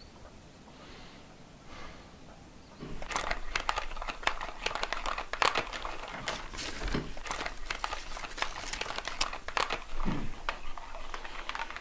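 Sheets of folded printer paper rustling and crinkling as they are handled, starting about three seconds in after a near-silent opening.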